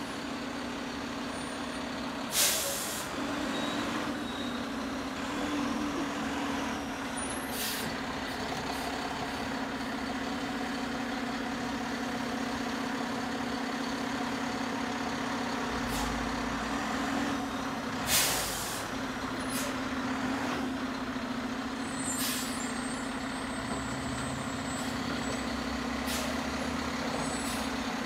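Front-loader garbage truck's engine running with a steady low drone while it works along the dumpsters, broken by two loud short air-brake hisses, about two seconds in and about eighteen seconds in, and a few fainter hisses later.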